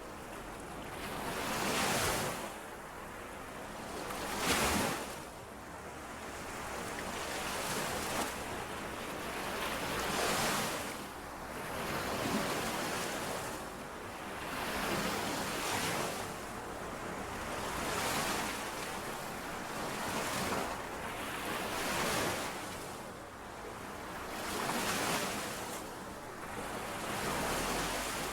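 Small lake waves lapping onto the shore in a constant in-and-out rhythm, each wash swelling and fading about every two seconds, with light wind on the microphone.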